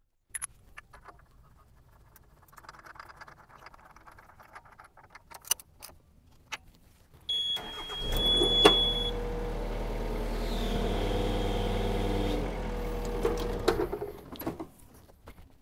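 A short high beep, then a machine motor starts and runs steadily with a low hum for about six seconds before shutting off, after a few seconds of handling clicks and knocks.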